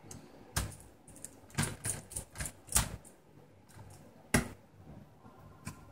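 Irregular sharp clicks and taps of a small screwdriver and plastic parts in an opened laptop chassis, bunched in the first three seconds, with one more loud click a little past the middle.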